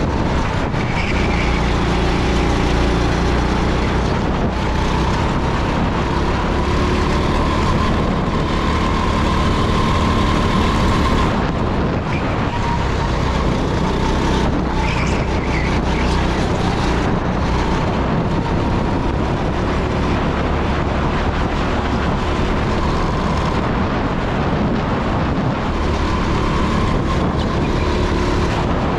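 Rental go-kart engine running hard under load at lap speed, heard from on board the kart, its pitch wavering only slightly through the corners over a steady rush of wind and road noise.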